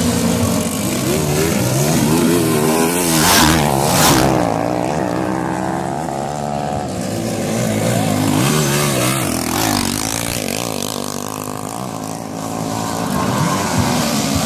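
Motocross dirt bike engines revving on a race track, their pitch rising and falling again and again as the riders throttle up and ease off through the corners. Two short rushes of noise come about three and four seconds in.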